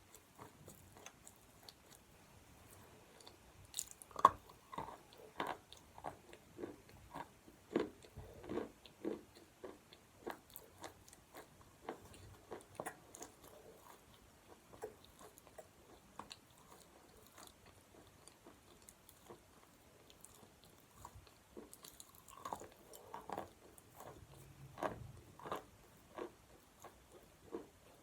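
A person biting and chewing chalk close to the microphone: crisp crunches that come thick about four seconds in and again after about twenty-two seconds, and sparser in between.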